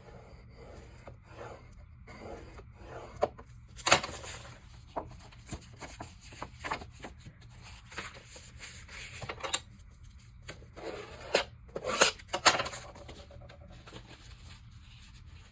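Thick cardstock being scored on a scoring board: a run of short rubbing, scraping strokes of the tool and paper, with a few louder sharp clacks.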